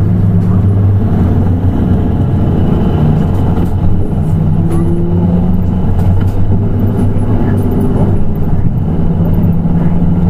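Nissan Diesel PKG-RA274KAN city bus's diesel engine running as the bus drives, a steady low drone whose pitch shifts up and down a little.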